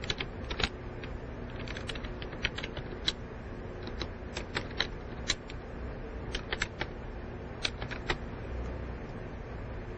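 Someone typing on keys, with irregular clicks that stop about eight seconds in.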